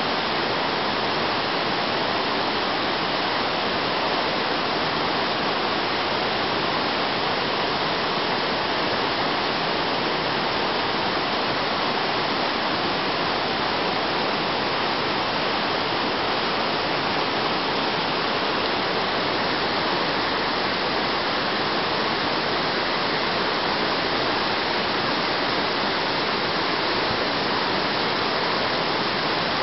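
Steady rushing of a mountain torrent, an even, unbroken noise of running water.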